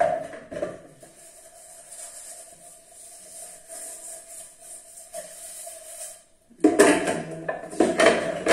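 Metal cookware clattering as a large perforated aluminium pot is set down onto a stack of upturned basin and metal trays, loud and rattling in the last couple of seconds, after a couple of light knocks at the start.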